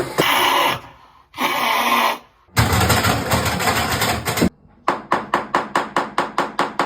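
Household racket: three short bursts of dense noise with brief silences between them, then a fast, even run of knocks, about six or seven a second.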